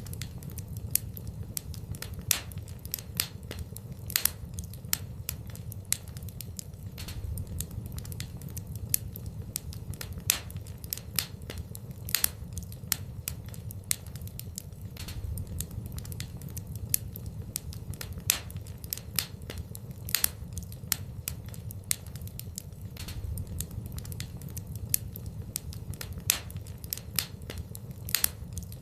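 Fire in a fireplace crackling, with frequent irregular sharp pops, some much louder than others, over a steady low background.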